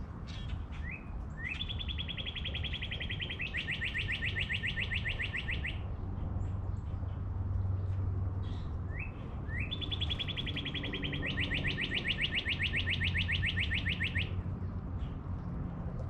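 A songbird sings twice. Each song opens with a short rising note or two and runs into a long trill of rapid repeated notes that speeds up about halfway through.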